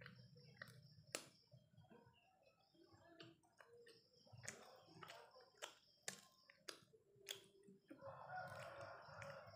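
Quiet eating sounds: soft chewing and scattered small clicks as bread is dunked into a mug of coffee. A faint drawn-out animal call, like a distant crow, comes in about eight seconds in and lasts a second and a half.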